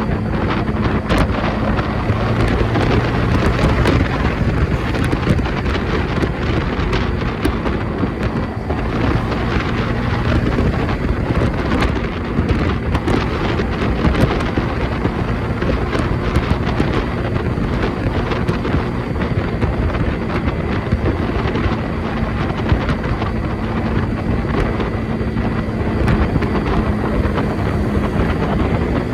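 Steady wind buffeting the microphone, with a low, even engine hum beneath it.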